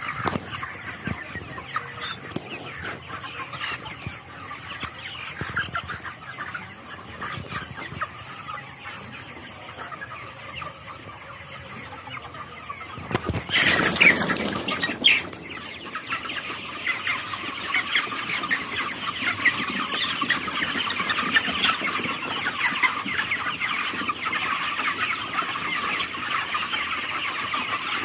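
A flock of broiler chickens clucking and peeping, thinly at first. About halfway through there is a brief loud flurry as the birds scatter, after which many birds call at once in a dense, steady chorus.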